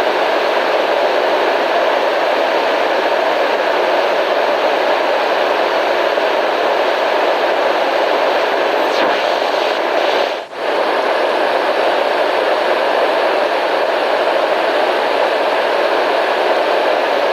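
Steady white-noise hiss with no pitch or rhythm, dropping out for a moment about ten seconds in.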